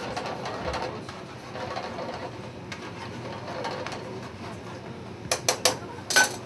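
Metal tongs stirring and scraping in a steel sauté pan of simmering cream sauce, with three quick metallic clacks a little after five seconds in and a louder clack just after.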